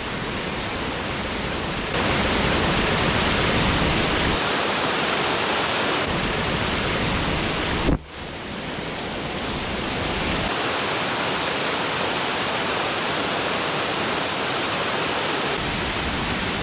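River water pouring over a low timber weir: a loud, steady rush of whitewater. Its tone and level shift abruptly a few times, with a sharp click and a brief dip about halfway through.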